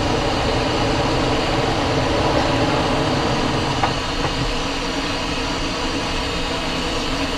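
Steady cockpit noise of a Cessna Citation XLS climbing out just after takeoff: its twin Pratt & Whitney PW545 turbofans running at takeoff power with the rush of air over the airframe, a continuous even noise with a steady hum.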